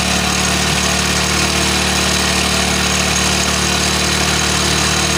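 Hero HF Deluxe's single-cylinder four-stroke engine running steadily at a raised idle. The air-fuel mixture screw is set at the point where the revs peak, the mark of the mixture being tuned for best mileage.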